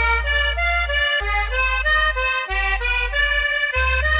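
Cumbia music with a reedy lead melody stepping through short notes over a deep bass note that restarts about every second and a quarter.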